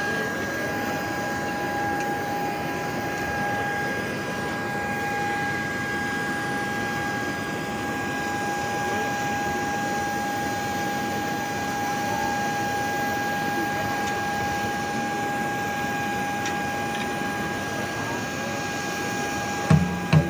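A steady whine of two held tones over an even hiss, unchanging throughout, like machinery running continuously; louder pulsing sound starts right at the end.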